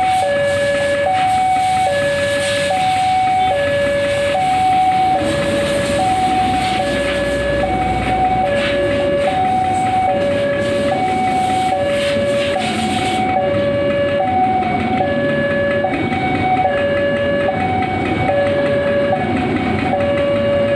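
Railway level-crossing warning alarm sounding steadily, a high and a low note alternating evenly, while a passenger train rolls through the crossing with a rumble that builds from about five seconds in.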